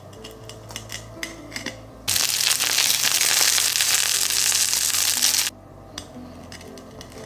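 Breadcrumb crust of fried cabbage rolls crunching and crackling in sharp little clicks as a wooden spatula presses into them. From about two seconds in, the rolls sizzle loudly frying in oil in a pan, which cuts off abruptly after about three and a half seconds, leaving a few light crunches near the end.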